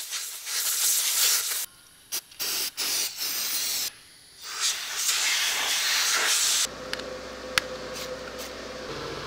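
Compressed-air blow gun hissing in a series of blasts: one long, a few short, then a longer one, blowing out the engine bay. About two-thirds of the way in the hiss stops and a steady low hum takes over, with one sharp click.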